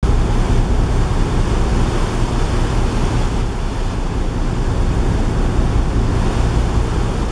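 Ise Bay Ferry under way: a steady rush of wake water and wind on the microphone over a constant low rumble.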